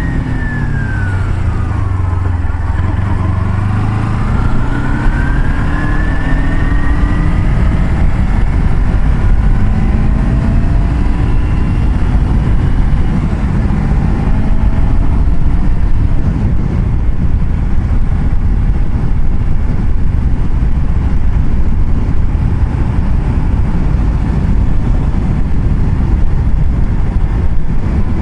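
Car driving along a road: a steady rumble of engine and road noise, with the engine's pitch sliding down and back up over the first several seconds.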